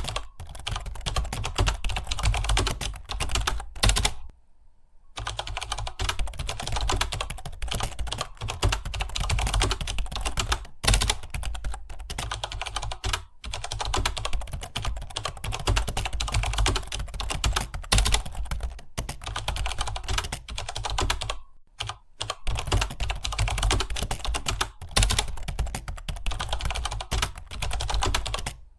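Fast, continuous typing on a computer keyboard, a dense run of key clicks, with short pauses about four seconds in and again around twenty-one seconds in.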